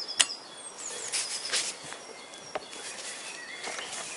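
Small birds chirping in short high calls, with a sharp metallic click about a quarter second in and a few fainter clicks and scrapes from a socket and long bar being worked on a flywheel bolt.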